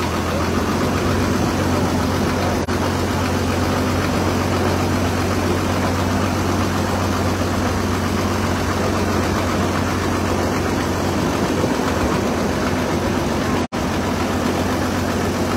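Ferry boat's engine running with a loud, steady low drone, heard from on board. The sound drops out for an instant twice.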